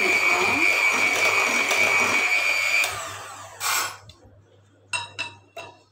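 Electric hand mixer running at speed, its beaters whisking butter-and-egg cake batter with a steady high motor whine. The whine dies away about three seconds in, gives a short burst near four seconds, and is followed by a few sharp clicks near the end.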